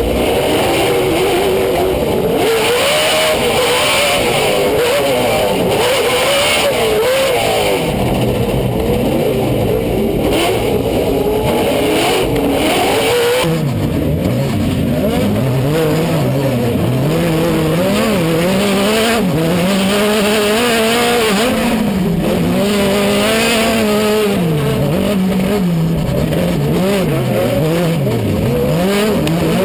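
Off-road race truck engines revving hard, the pitch climbing and dropping again and again with throttle and gear changes. For the first half it is heard from inside a truck's cab; about 13 seconds in the sound changes abruptly to trucks racing close past.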